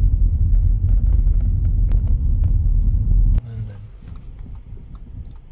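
Car driving on a road, heard from inside the cabin: a loud, steady low rumble of road and engine noise. About three and a half seconds in it cuts off abruptly to a much quieter cabin hum.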